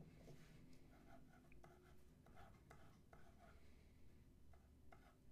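Faint scratching of a steel dip pen nib on a paper swatch card, spreading ink in a series of short strokes.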